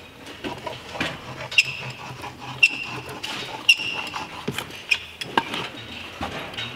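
Silicone sealant being dispensed from a caulk gun along a wooden window jamb: a string of clicks and short high squeaks, with a few sharper knocks about five seconds in.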